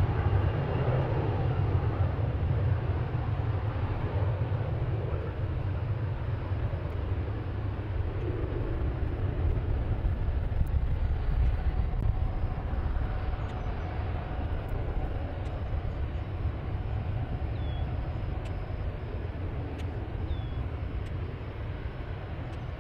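Jet airliner's engines rumbling, the deep roar slowly fading as the aircraft moves away, with two faint short chirps near the end.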